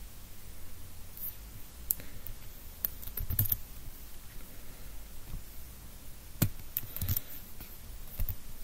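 A handful of separate computer keyboard and mouse clicks, spaced out by pauses of up to a few seconds.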